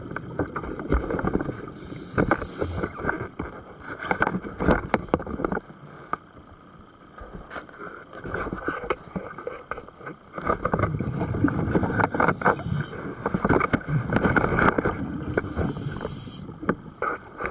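Scuba diver's regulator breathing heard underwater: three short hissing inhalations and long rumbling, bubbling exhalations, with scattered clicks and knocks.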